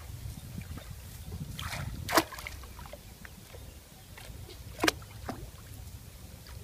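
Shallow water splashing and sloshing as a wire-mesh fish trap is handled and dragged through it. There are two sharper splashes, about two seconds in and just before five seconds.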